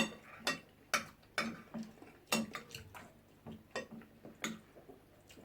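Cutlery clicking and tapping against a plate while eating: about a dozen sharp, irregular clicks, the loudest right at the start.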